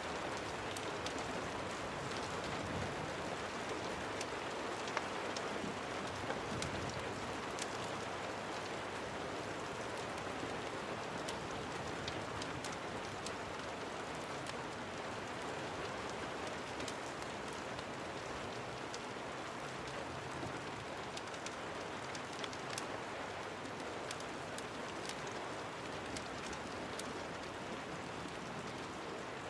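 Steady rain falling, an even hiss with many small, sharp ticks scattered throughout.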